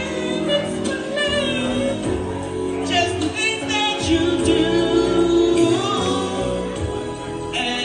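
A solo voice singing a melody with held, gliding notes over instrumental backing music.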